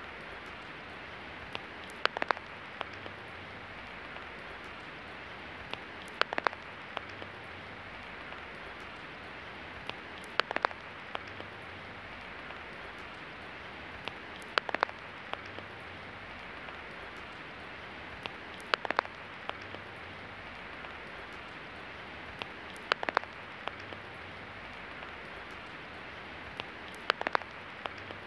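Steady rain hiss, with a short cluster of loud sharp taps about every four seconds.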